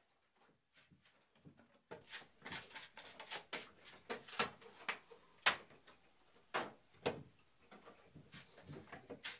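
Irregular sharp wooden knocks and clacks, about a dozen, as thin split wooden roof shingles are handled and knocked against each other and a small hand tool. Starts about two seconds in after a near-quiet moment.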